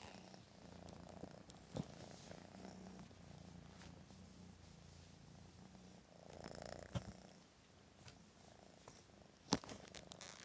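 Kittens purring softly and steadily, a faint pulsing rumble, with a few sharp clicks, the loudest near the end.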